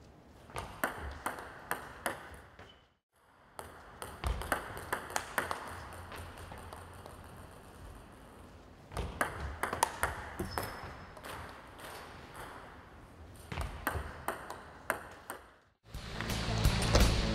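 Table tennis ball clicking back and forth: sharp hits of the ball on the paddle and bounces on the table, in quick clusters of a few strokes each. Near the end the sound jumps to a louder, busier hall where the ball clicks continue.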